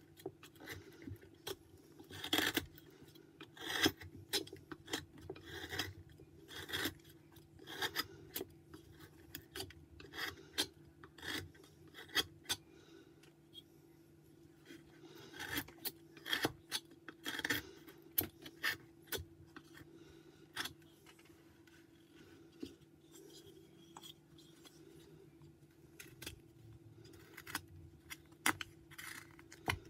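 Carving knife slicing white pine in short, irregular strokes, each cut a brief scrape of the blade through the wood, with pauses between cuts.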